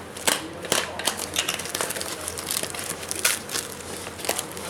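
Irregular clicking and tapping, several sharp clicks a second at uneven spacing.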